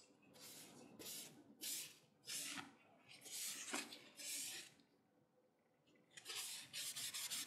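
Paper towel wiping wood stain over a curly maple knife handle: a run of short rubbing strokes, a brief pause, then faster, continuous rubbing near the end.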